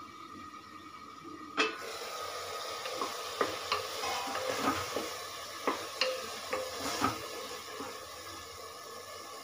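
Chopped tomatoes and onions sizzling in an open pressure cooker as they soften over a medium flame, while a spatula stirs them, knocking and scraping against the pot. There is a sharp metal clank about a second and a half in, then a run of short knocks.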